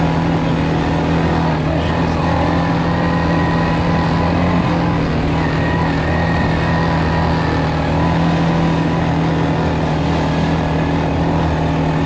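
ATV engine running while riding at a steady speed: a constant, even drone that holds the same pitch throughout.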